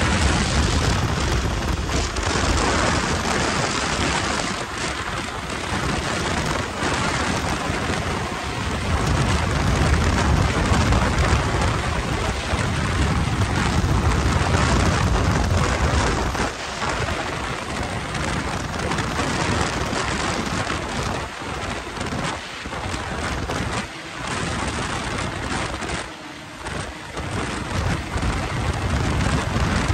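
Wind buffeting the microphone of a moving snowmobile: a continuous rushing roar with low rumbling gusts, the snowmobile's engine and track running underneath. The rumble eases briefly a few times in the second half.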